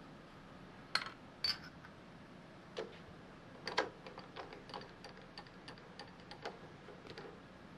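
Light metal clicks and knocks of a workpiece and milling vise being handled: a few sharper knocks, then a run of lighter ticks, a few a second.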